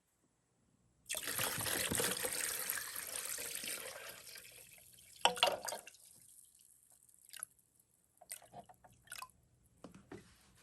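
Vinegar pouring into a container to soak the rust off cast-iron carburetor parts. It starts suddenly about a second in and tapers off over the next few seconds, and a few scattered clinks and knocks follow.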